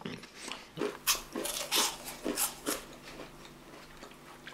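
Crunchy chewing of a cookie frozen in liquid nitrogen: a run of short, crisp crunches that die away after about three seconds.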